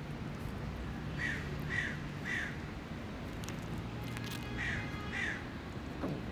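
Short animal calls: three in quick succession, then two more.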